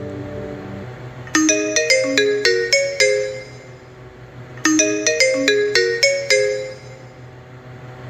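TCL A1 (A501DL) phone ringtone: a short melody of quick, bell-like struck notes, about eight in a run, played twice with a pause between. Held notes from the previous tone fade out in the first second, and a faint steady hum lies underneath.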